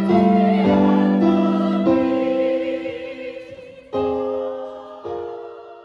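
Choral music: many voices singing long held chords with piano, each new chord coming in after a second or two, then fading out at the end.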